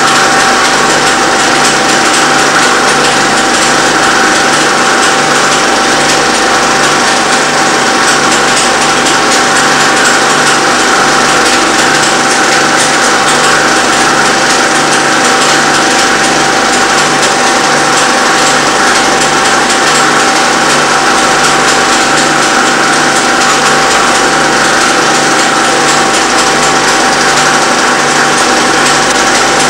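Film projector running steadily: a continuous mechanical whir with a steady high whine and a faint regular beat underneath.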